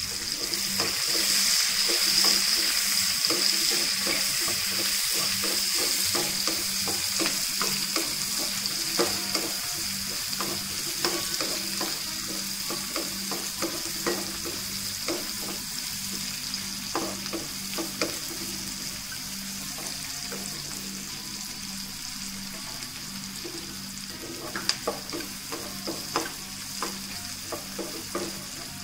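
Sliced onions sizzling in hot oil in a nonstick pan, with fried cashews and dried red chillies, stirred with a wooden spatula that scrapes and clicks against the pan. The sizzle is loudest at first and dies down gradually as the onions start to soften.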